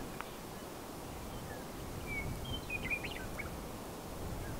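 Wind rumbling in gusts across open ground, with small birds giving scattered short high chirps and whistles, several in quick succession around the middle.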